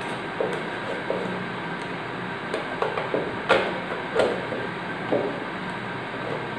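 Scattered plastic clicks and taps from the white flip-top lid of a clear plastic kitchen storage container being opened and closed by hand, the sharpest about three and a half seconds in, over a steady background hiss.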